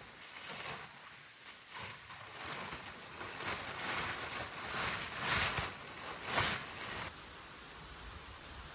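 Footsteps rustling and crunching through forest-floor leaves and undergrowth, an uneven string of steps and brushes that cuts off suddenly about seven seconds in.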